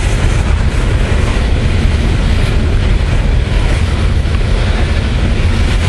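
Loaded coal hopper cars of a freight train rolling past close by: a steady, loud rumble of steel wheels on the rails.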